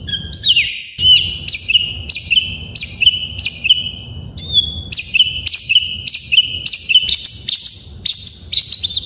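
Oriental magpie-robin (kacer) singing a rapid run of sharp, down-slurred whistled notes, about two to three a second, with a short break about four seconds in. Beneath it runs the steady rush of a flowing stream.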